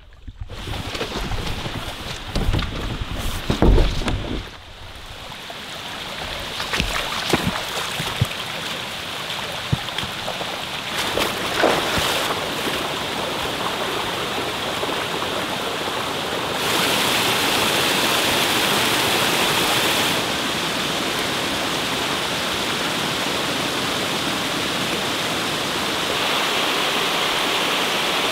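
Wind gusting on the microphone for the first few seconds, then the steady rush of a small creek cascading down sloping rock slabs in a little waterfall, growing louder partway through and again near the end, with a few knocks along the way.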